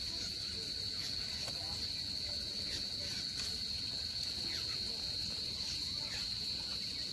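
Insects in woodland scrub, giving a steady high-pitched drone on one unbroken pitch, with a few faint short falling chirps over it.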